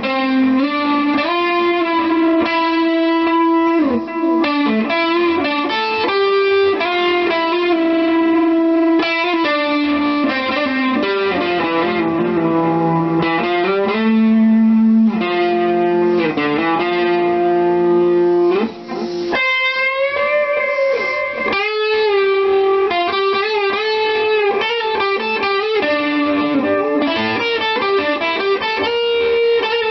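Ibanez electric guitar played through an amp: a slow, melodic single-note lead line of held notes, slides and bends. There is wide vibrato on sustained notes a little past the middle.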